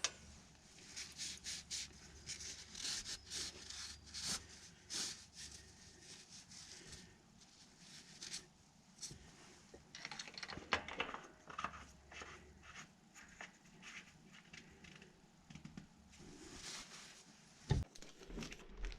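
Faint rustling and scattered small clicks and taps of hand work with tools and parts, with a few louder knocks near the end.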